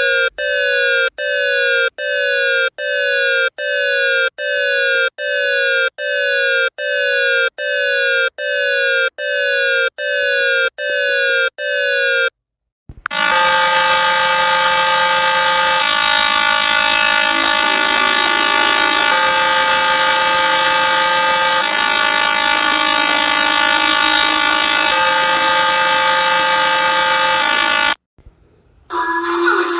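Emergency-alert-system alarm tones: a falling tone repeats about every three-quarters of a second for about twelve seconds. After a short break comes a steady, held chord of several tones that runs for about fifteen seconds and cuts off near the end.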